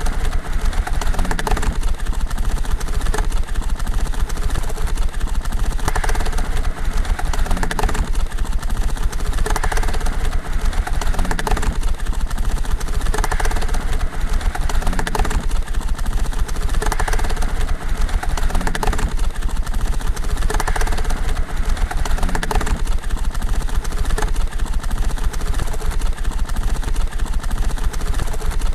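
Hand-cranked homemade mutoscope running: record cards on the turning drum flick one after another past the stop in a rapid, even clatter that swells about every two seconds.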